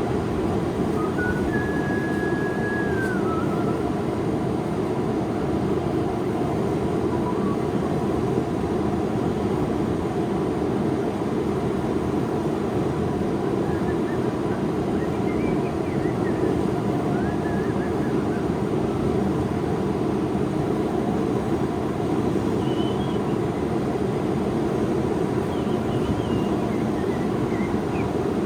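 Forge running with a steady, low rushing noise while the blade is heated between hammering sessions, with a few faint short whistled notes scattered through it.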